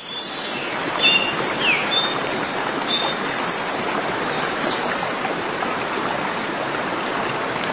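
A stream running steadily, with small birds chirping over it: short high whistles and quick down-slurred notes, most of them in the first few seconds.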